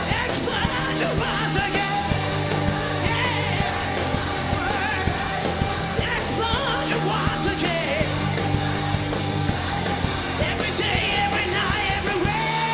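Live rock band playing: a male lead singer sings at full voice over electric guitar, bass, drums and keyboards with a steady beat.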